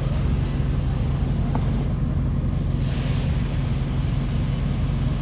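Old vehicle's engine running with a steady low hum, with a brief rush of higher noise about three seconds in.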